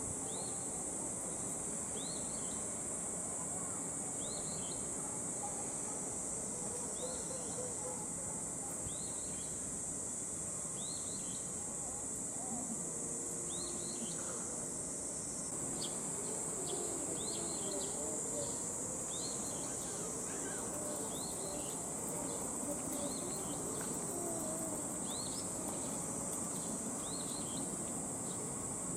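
Insects droning steadily at a high pitch, with short chirps repeating every second or two that come faster in the second half.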